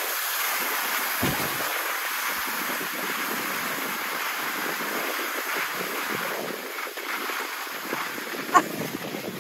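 Skis sliding and scraping over packed snow in a slow snowplough descent, a steady rough hiss, with wind on the microphone. A short sharp knock comes near the end.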